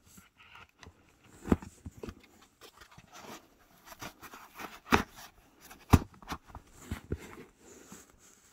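Handling noises as a small die-cast model excavator is pressed back into its box and foam insert: soft scraping and rustling with a few sharp taps, the loudest around five and six seconds in.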